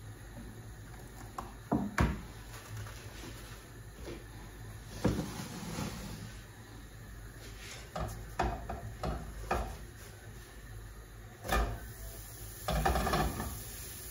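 Kitchen work sounds: scattered knocks and clicks of things being handled and set down during cooking, with a longer clatter near the end.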